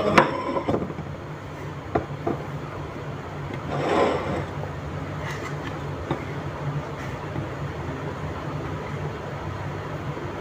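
Kitchen knife cutting eggplant on a wooden chopping board: a few sharp knocks of the blade on the board, mostly in the first couple of seconds, and a short rush of noise about four seconds in. A steady low hum runs underneath.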